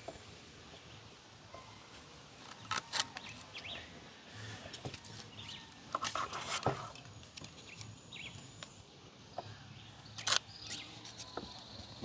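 Dry sticks and kindling handled and stacked among stones for a fire: scattered light knocks and scrapes of wood, in a few clusters about three, six and ten seconds in.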